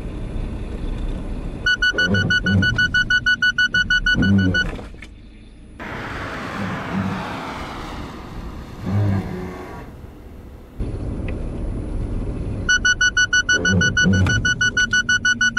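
Suzuki Swift's forward-collision warning alarm beeping rapidly and high-pitched inside the cabin over engine and road noise, sounding for about three seconds, then stopping; the warning of an imminent collision with the test target ahead of automatic emergency braking. In between comes the car's engine and tyre noise as it drives past outside, and the rapid beeping starts again near the end.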